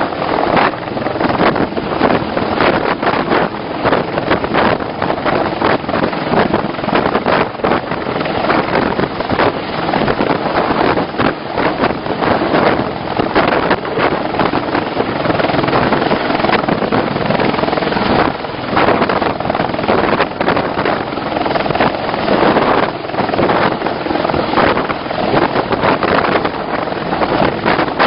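CH-53 heavy-lift helicopter running on deck with its rotors turning, a loud, steady rotor and turbine noise with irregular surges, heavily buffeted by wind on the microphone.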